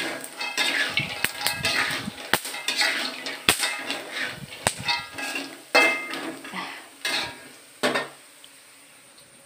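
A metal spatula stirs and scrapes fried peanuts around a wok, with repeated clinks of metal on metal and rattling nuts. The peanuts are cooked brown and the heat is off. The stirring stops near the end.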